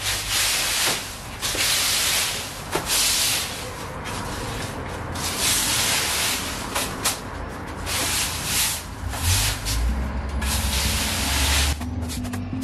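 Push broom sweeping dry leaves across paving stones: repeated scratchy swishes, one stroke every second or so. Music fades in near the end.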